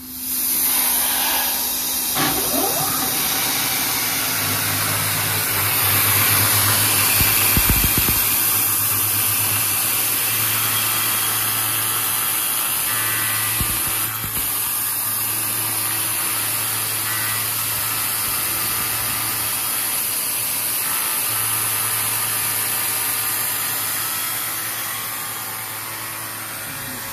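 Milling machine spindle running while an end mill cuts into the crown of a V12 engine piston held in a vise: a steady machining hiss over a low hum that starts suddenly and eases slightly near the end.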